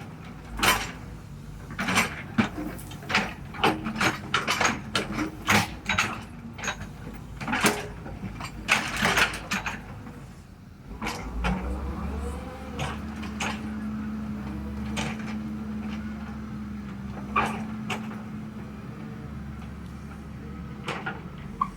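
Excavator at work: a quick run of sharp clacks and knocks, then from about halfway a motor running steadily with a low, even hum.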